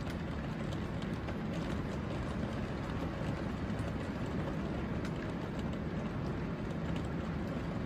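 Heavy rain pouring steadily, heard through a window, with scattered drops ticking faintly.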